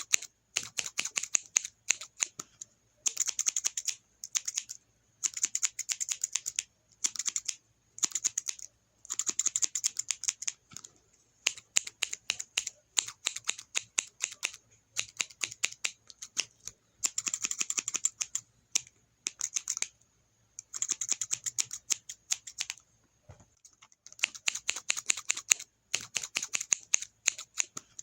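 Scissors snipping rapidly, in runs of quick sharp blade closes lasting a second or two, broken by short pauses.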